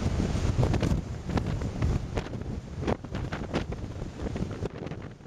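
Storm-force wind buffeting the microphone in heavy, rumbling gusts, with scattered sharp clicks about one to four seconds in. The wind noise eases near the end.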